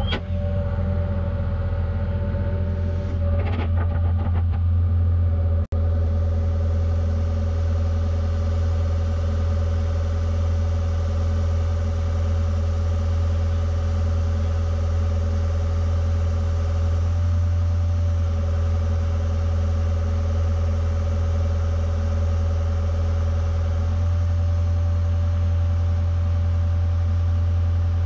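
Hydraulic excavator's diesel engine running steadily, a deep even hum with a steady higher whine over it; the sound dips briefly about six seconds in.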